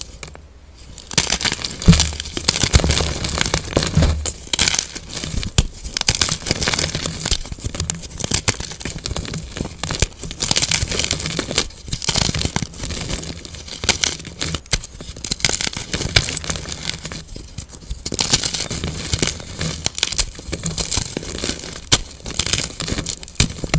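Blocks of plain white gym chalk (magnesium carbonate) being snapped apart and crumbled between the hands: dense, irregular crunching and crackling with many sharp snaps and powdery crumbling.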